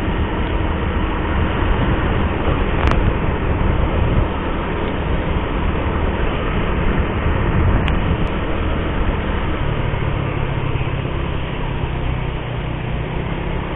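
Steady rush of wind and road noise on a camera riding on a moving motor scooter, with the scooter's small engine running underneath.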